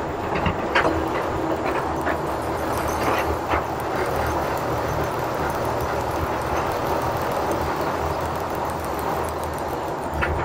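Cab noise of a Bedford RLHZ Green Goddess fire engine driving slowly: its petrol straight-six engine runs steadily under a low rumble, with a few light knocks from the cab.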